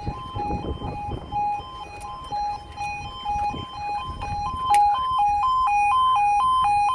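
Level crossing audible warning alarm: an electronic two-tone yodel swapping back and forth between two close high pitches. It is fainter under some low rumble at first, then louder and evenly alternating about twice a second after a sharp click near five seconds in.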